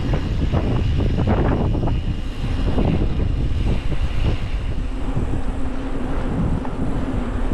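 Wind buffeting an action camera's microphone on the handlebars of a moving mountain bike, a steady low rush mixed with tyre noise on asphalt.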